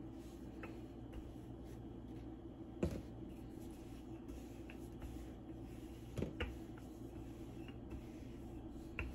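Wooden rolling pin rolling out pie dough on a floured wooden board, with three knocks of the pin against the board about three seconds apart and a few lighter clicks, over a faint steady hum.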